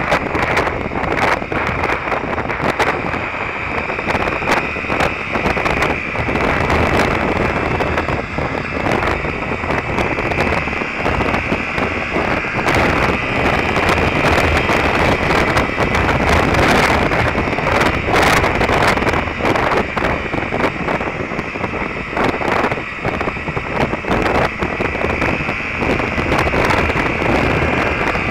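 Wind buffeting the microphone of a camera mounted on a moving Derbi Terra Adventure motorcycle, with the bike's engine running steadily underneath at road speed.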